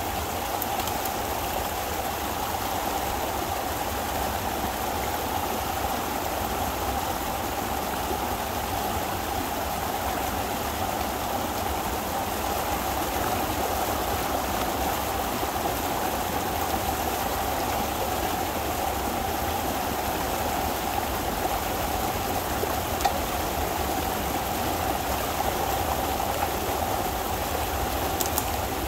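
Pond water rushing steadily out through a breach opened in a beaver dam, a small torrent pouring over the sticks and mud as the beaver pond drains.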